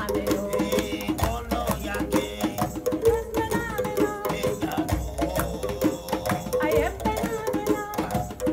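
Live West African folk song: a djembe played by hand in a quick, steady rhythm under a woman's singing voice, with held notes.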